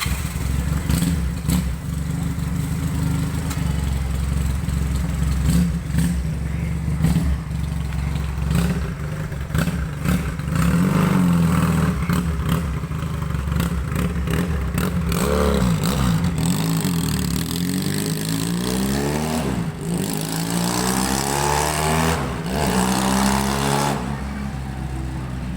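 Keeway Patagonian Eagle 250's V-twin engine running through a custom trumpet exhaust. It idles steadily, then from about ten seconds in it is revved again and again, its pitch rising and falling, and it settles back near the end.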